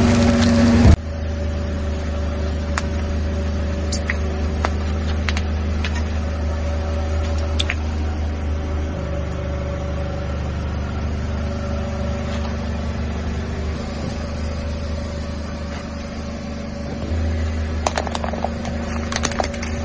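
A loud sound cuts off abruptly about a second in. Then a car engine runs steadily at low speed, with scattered sharp cracks, and a cluster of crackling near the end as objects are crushed under the tyres.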